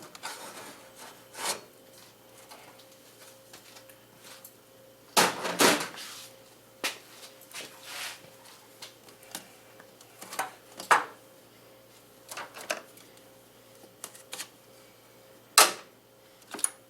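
Scattered knocks, clunks and rubbing as parts and tools are handled while the intake piping is taken off, with the loudest clatters about five seconds in and near the end. A faint steady hum runs underneath.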